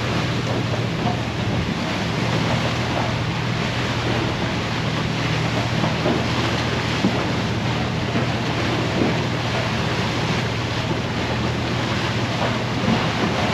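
Steady low drone of an icebreaker's engines under a constant rush of water and broken drift ice along the hull, with wind buffeting the microphone.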